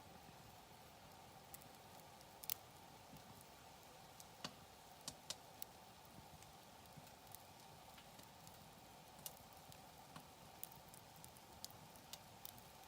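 Wood campfire crackling: faint, sparse sharp pops scattered irregularly, the loudest about two and a half seconds in and a quick cluster around five seconds, over a faint steady hiss.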